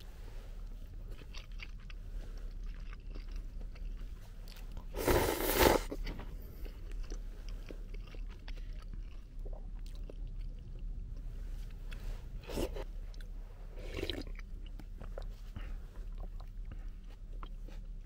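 A person eating ramen: soft chewing throughout, with one loud slurp of broth about five seconds in and two shorter slurps later.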